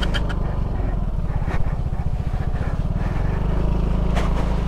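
Yamaha Mio Gear 125 scooter's single-cylinder engine running at low, uneven throttle, steadying about three and a half seconds in. A couple of sharp knocks come through, one about a second and a half in and one near the end.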